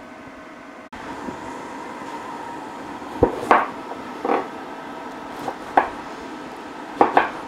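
A few short knocks and clinks of kitchen cookware and utensils, two close pairs among them, over a steady background hum.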